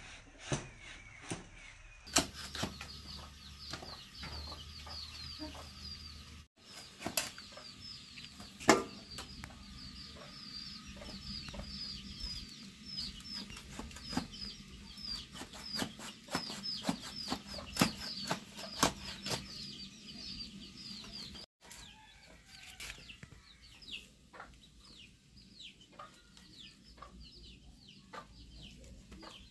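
Chickens clucking and peeping rapidly in the background, with short high falling chirps many times a second. Sharp clicks and cracks come from a curved blade cutting through a plucked chicken. The peeping thins out in the last part.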